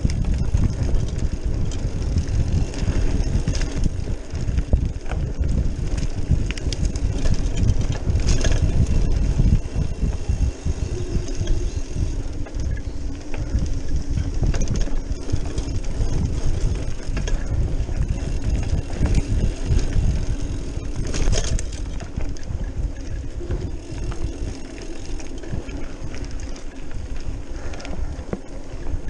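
Trek Marlin 5 hardtail mountain bike rolling fast downhill on a dirt and gravel trail: a steady rumble of tyres and rattling of the bike over the rough surface, with wind buffeting the microphone and a few sharper clatters over bumps.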